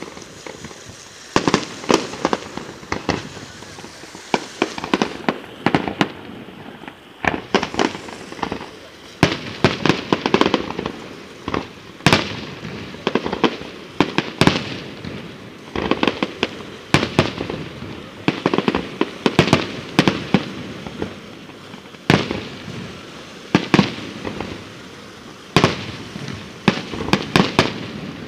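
Aerial fireworks display going off continuously: clusters of sharp bangs from bursting shells, one after another every second or so with hardly a pause.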